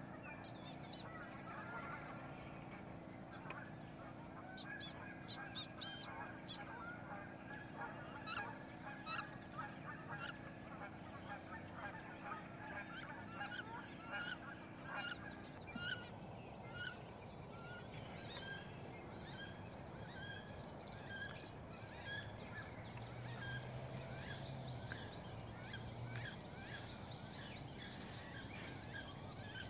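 Wood ducks calling: short, high, rising squeals repeated about once or twice a second, coming more often in the second half.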